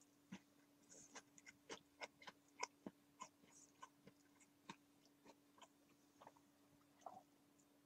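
Faint, quiet room sound: scattered small clicks and ticks, a few a second, over a low steady hum.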